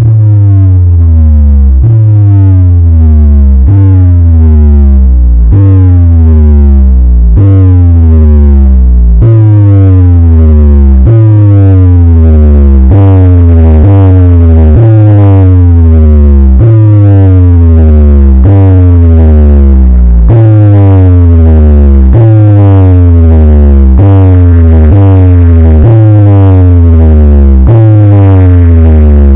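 Loud, distorted DJ remix speaker-check music: heavy booming bass notes changing about every second, under a repeated synth sound that keeps sliding down in pitch.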